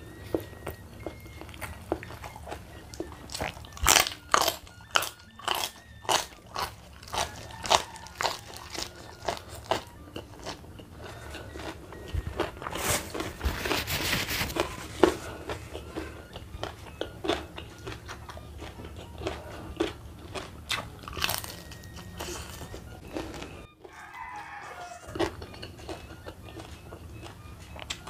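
Close-miked crunching and chewing of raw papaya leaves and stems dipped in sambal, with many sharp crunchy bites, thickest in the first third. About halfway through comes a short rustle of tissue paper wiped across the mouth.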